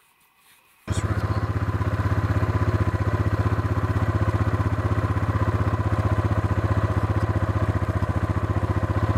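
Side-by-side off-road vehicle's engine running steadily with a fast, even low putter. It cuts in abruptly about a second in, after near silence.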